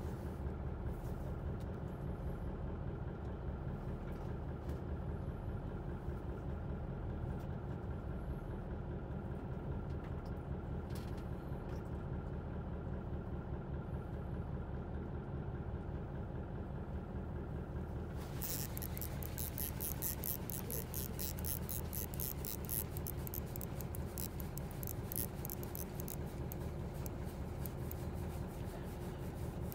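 Fishing boat's engine running steadily, a low even rumble. About two-thirds of the way through, a rapid high clicking rattle starts on top of it and carries on.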